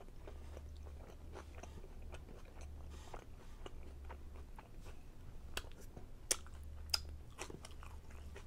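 Close-up chewing of a chicken fajita: wet mouth clicks and smacks, with a few sharper smacks around six and seven seconds in, over a low steady hum.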